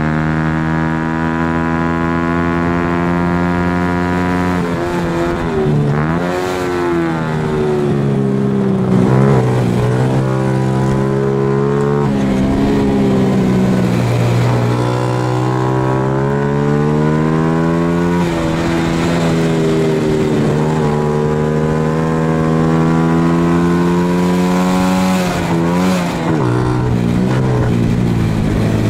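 Onboard sound of a Honda Super Cub race bike's single-cylinder four-stroke engine running hard. Its pitch drops sharply about five times as the throttle comes off, then climbs back steadily as the bike accelerates again.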